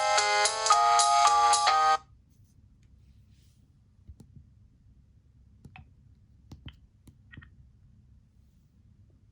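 Motorola RAZR V8's speaker playing a quick electronic ringtone melody, which cuts off suddenly about two seconds in. A few faint clicks follow.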